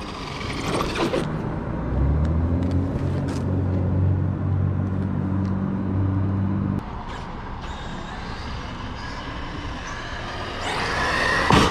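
Street traffic at an intersection: a car engine hums steadily from about two seconds in and cuts off abruptly near seven seconds, over a constant rush of road noise. Near the end the noise swells and ends in a sharp knock.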